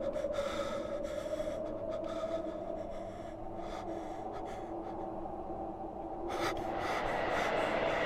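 A man gasping and breathing heavily in short ragged breaths over a sustained low drone. About six seconds in, a rushing noise with a steady high tone swells up.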